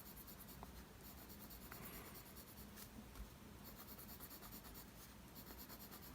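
Faint scratching of a mechanical pencil on paper, drawing repeated downward vertical strokes.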